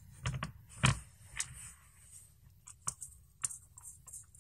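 Light clicks and taps of small hardware being handled and hand-threaded into a carbon-fibre drone frame plate: a handful of short, scattered ticks, the sharpest about a second in.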